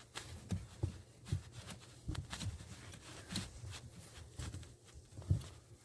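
Scattered light clicks and taps of hands pulling at plastic parts under a pickup's dashboard while working a brake light switch loose.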